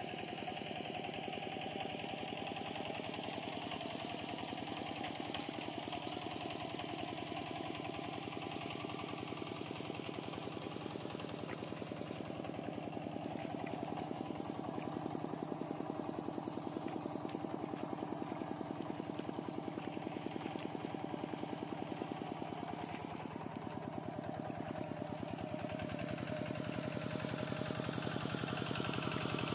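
An engine running steadily, with a fast, even firing pulse that does not change.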